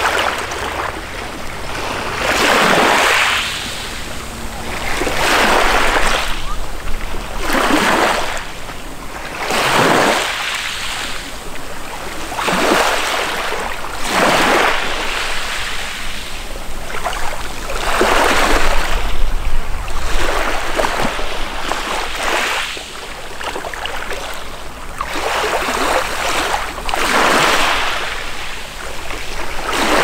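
Small waves breaking and washing up a pebble shore, a new swell of surf every two to three seconds.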